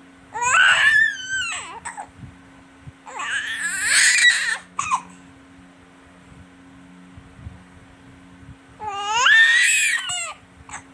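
Baby vocalizing in three loud, high-pitched outbursts, each a second or two long, with the pitch sliding up and down, between quiet pauses.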